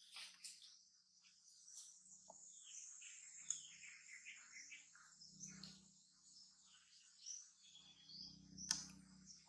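Faint outdoor ambience: a steady high-pitched insect drone with scattered short bird chirps. Two sharp clicks stand out, one near the middle and one near the end.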